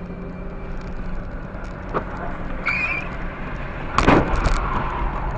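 Dashcam car driving, with steady engine and road noise inside the cabin; about four seconds in, a sudden loud impact of several knocks close together as the car collides.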